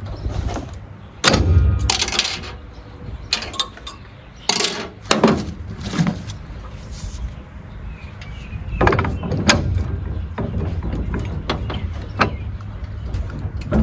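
A heavy steel floor jack being worked out of its shipping box and packaging: irregular thuds, knocks and clunks with scraping and rustling between them, the heaviest knocks coming in three clusters.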